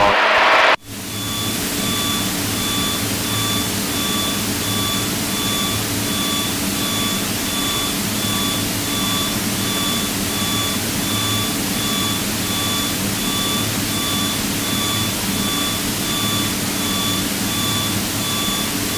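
Piper PA-32's six-cylinder piston engine droning steadily in cruise, with an evenly repeating high beep tone over it. Both come in about a second in.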